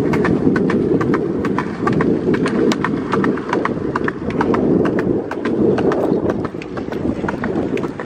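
Wind rumbling hard on the microphone of a camera carried at riding speed, with a quick, irregular clicking rattle, several clicks a second, over it.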